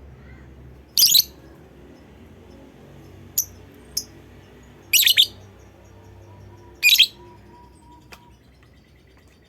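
Lovebird giving short, shrill, high-pitched calls: three loud ones about a second, five and seven seconds in, with a few softer, briefer chirps between them.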